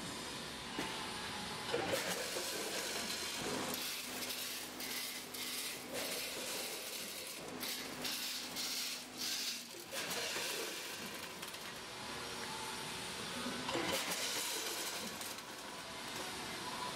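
A multihead combination weigher running with dry fusilli pasta, a steady clatter and hiss of pasta sliding and dropping into stainless steel weigh hoppers. A run of sharp clicks comes near the middle.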